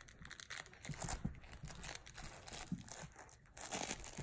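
Great Pyrenees puppies tugging and mouthing a toy in play: faint, irregular rustling, crinkling and scuffing with a few small sharp knocks.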